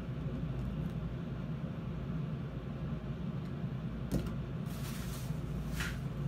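Steady low background hum, with a click about four seconds in and a few brief hissy rustles near the end.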